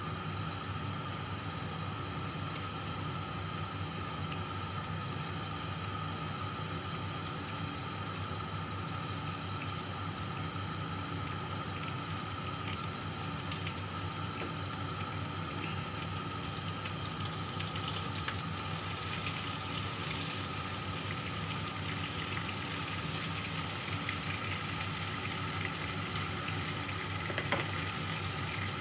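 Flour-coated chicken pieces sizzling and crackling in hot oil in a wok, over a steady low hum. The sizzle grows louder about two-thirds in as more pieces go into the oil.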